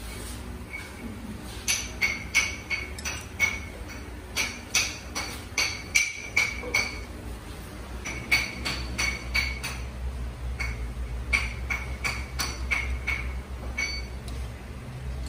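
Metal repeatedly tapped and clinked against metal: irregular bunches of sharp strikes, each ringing briefly at the same high pitch, over a steady low hum.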